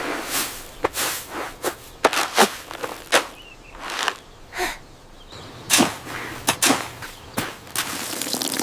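A run of short cartoon sound effects: about a dozen and a half quick swishes and knocks at an irregular pace.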